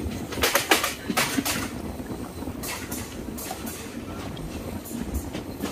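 Passenger train running, a steady rumble with a scatter of sharp clicks and knocks that come thickest in the first second and a half.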